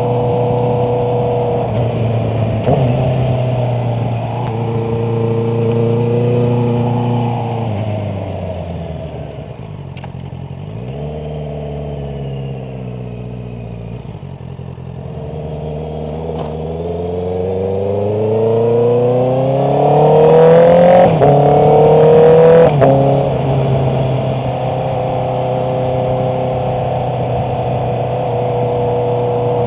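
Honda CBR650R's inline-four engine cruising steadily, then slowing with a falling pitch near the middle. It pulls away again in a long rising rev that peaks about three-quarters of the way through, drops sharply at an upshift, and settles back to a steady cruise.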